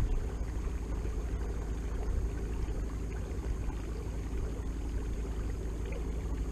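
Watersnake T24 electric trolling motor running steadily as it pushes a kayak, a continuous low hum with faint water sounds. A brief low thump right at the start.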